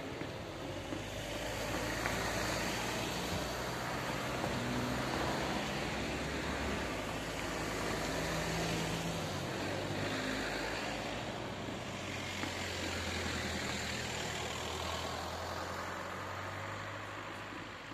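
Cars driving one after another over the level crossing close by, their engine and tyre noise swelling and easing as each one passes.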